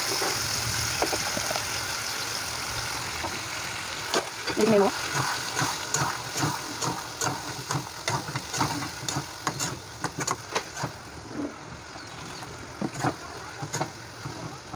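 Yogurt-marinated chicken sizzling as it goes into hot oil with fried onions and tomatoes in a kadai, the hiss strongest at first. From about four seconds in, a spatula stirs the chicken, clicking and scraping against the pan in quick, irregular strokes.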